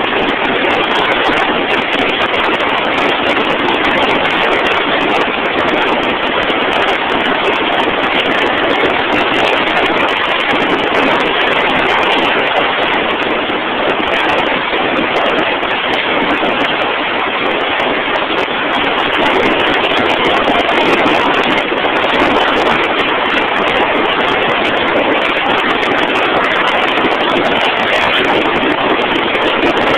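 Loud, steady noise of heavy drilling-rig machinery running, with no clear engine note and no distinct knocks.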